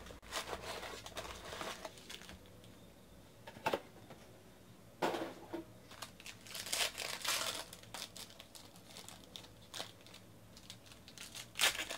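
Foil trading-card packs crinkling in short, irregular bursts as they are handled and stacked, with a pack being torn open near the end.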